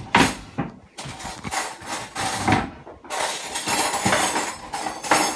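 Metal cutlery clattering and clinking in a kitchen drawer while someone rummages for a spoon, with a sharp knock just after the start.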